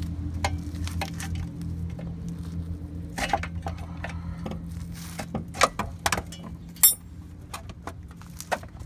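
Metal clinks and knocks as a worn-out front ECS strut is wiggled and pulled down out of its mount and wheel well, over a low steady hum that fades after about five seconds. The loudest is a sharp clink with a brief ring about seven seconds in.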